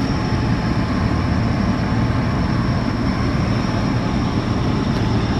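Natural gas compressor station running: the loud, steady drone of its compressor engines, a deep rumble with a thin high whine held constant above it.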